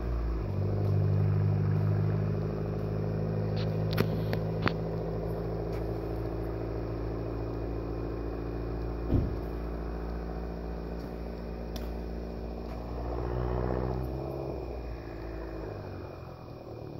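Exhaust of a turbocharged car fitted with a 3-inch stainless steel downpipe-back exhaust. It drones steadily at low revs, with its pitch dropping just at the start, and fades gradually. About thirteen seconds in it rises and falls once more. A couple of sharp clicks come about four seconds in, and a short thump near nine seconds.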